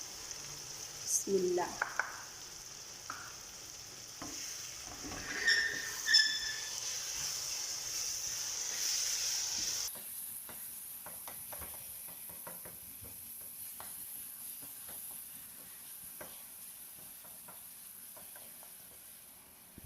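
Vegetables and spices frying in hot oil in a pan, sizzling steadily while a spoon stirs and scrapes with small clicks. There are a couple of ringing clinks about six seconds in. The sizzle drops quieter about halfway through.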